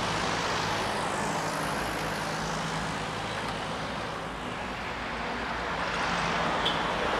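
Motorcycle running at a steady pace on the road: a low, even engine drone under a steady rush of wind and road noise.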